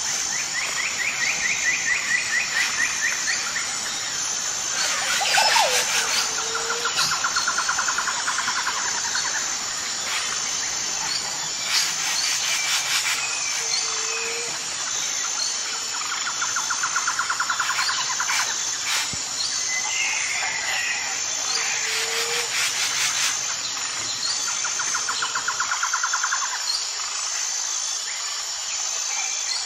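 Birds singing: a bird repeats a fast trill every few seconds, with short lower notes between, over a steady high thin buzz and a few sharp clicks.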